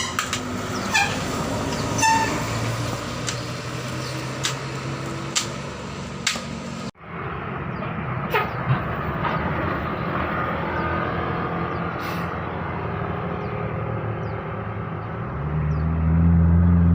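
Road traffic with a multi-tone telolet musical horn sounding a few short notes near the start, then steady engine and road noise. The sound cuts out briefly about seven seconds in, and near the end a heavy engine rumble grows loud and close.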